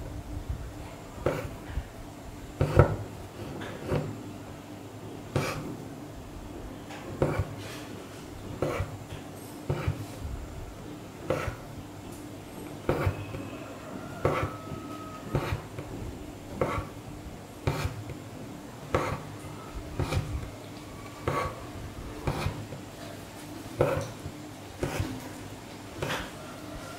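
Hand embroidery in long-and-short stitch: an embroidery needle punching through stretched fabric and the thread pulled through after it, a short sharp tap or pop for each stitch, about one a second, some in quick pairs.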